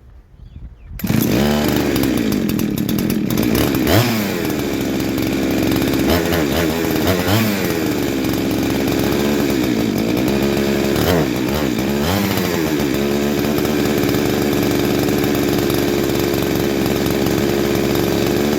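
Two-stroke clone Husqvarna 372XP chainsaw catches about a second in and runs, its pitch surging up and down unevenly, then settling to a steady run for the last few seconds. It is running on a cheap replacement carburettor whose mixture screws are being adjusted, which the owner calls a terrible carburettor.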